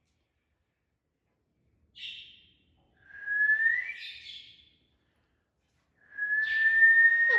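A pet parrot whistling: a short rasp about two seconds in, then a rising whistled note, and near the end a longer, steadier whistle that lifts slightly in pitch.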